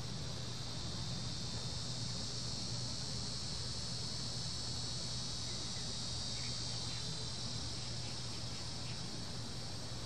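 Cicadas droning in one continuous high buzz that swells slightly in the middle and eases off near the end, over a low steady hum.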